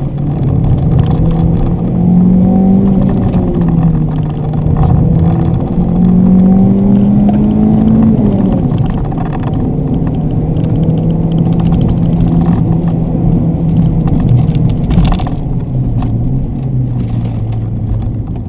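Renault Clio 3 RS's 2-litre naturally aspirated four-cylinder engine running hard, its pitch climbing twice as it revs and dropping back about eight seconds in. It then holds steady revs and drops lower near the end.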